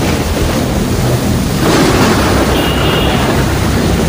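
Storm wind and heavy rain rushing loudly and steadily, with a stronger gust swelling up a little before halfway through.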